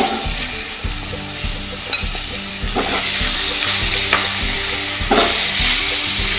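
Raw mango pieces sizzling as they go into hot refined oil in a kadai. The sizzle gets louder about three seconds in, with a few knocks in the pan as pieces land.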